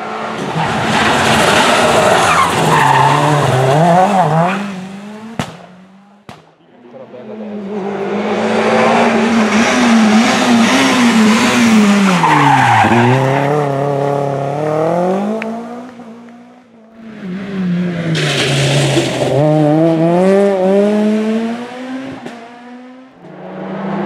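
Rally cars passing one after another at speed, three separate passes, among them a first-generation Renault Clio. Each engine revs high, drops as the car brakes and changes down, then climbs again as it accelerates away.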